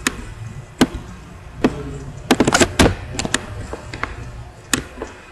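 Irregular sharp clicks and taps of a computer mouse and keyboard, with a quick run of several taps about halfway through.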